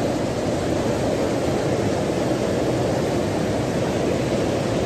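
Fast-flowing floodwater rushing and churning across a road: a steady, deep rush of water with no let-up.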